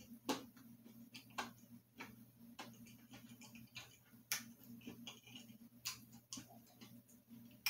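A person chewing a bite of frosted cookie with the mouth closed: soft irregular mouth clicks and smacks, a few sharper than the rest.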